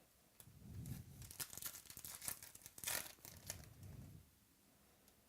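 Crinkling and rustling of trading-card packs and wrappers being handled, in a run of dry crackles that starts about a second in and fades near four seconds.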